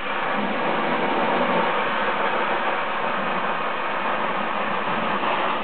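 Vacuum cleaner running steadily with a constant rushing noise.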